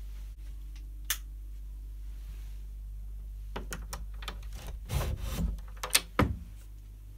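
A metal box rim lock on a wooden door being worked by hand: a single click about a second in, then a run of clicks, scrapes and knocks as the latch knob is turned and the door is pulled open.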